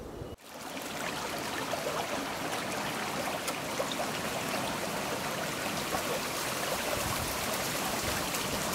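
Running water of a stream, a steady even rush that comes in quickly about half a second in.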